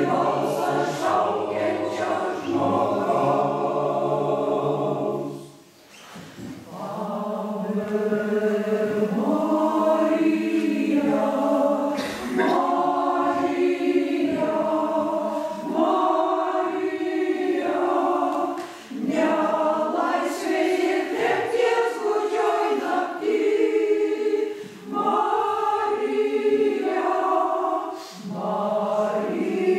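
Mixed choir of older men and women singing a hymn in several parts, phrase by phrase, with short breaks between phrases; the longest pause comes about six seconds in.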